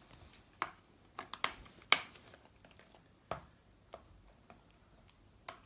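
A sealed trading-card packet being handled and opened: a scattered series of sharp crinkles and clicks, the loudest two coming about one and a half and two seconds in.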